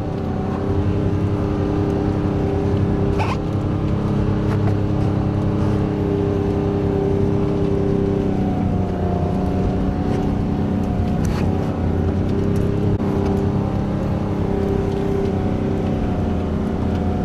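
Off-road 4x4's engine running steadily at low revs as it crawls along a rough dirt track, heard from inside the cab, its pitch shifting a little about halfway, with a few knocks from the bumpy ground.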